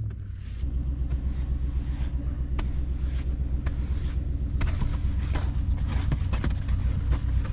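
Car engine running, a steady low drone that grows louder about half a second in, with scattered light ticks over it.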